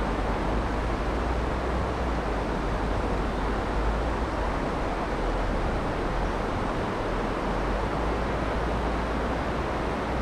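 Steady rush of a flowing river: an even noise with a heavy low rumble that does not change.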